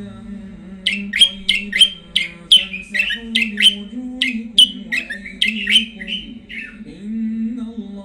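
Caged songbird (the bird sold in Morocco as 'wtwat') singing a fast run of sharp, downward-sliding notes, three or four a second, that starts about a second in and stops near the end. A low, steady droning tone runs underneath.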